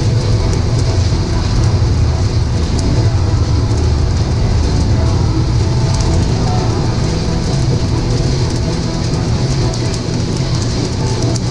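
Probat L5 drum coffee roaster running mid-roast: a steady hum from the drum and fan, with a patter of faint clicks as the beans tumble in the rotating drum.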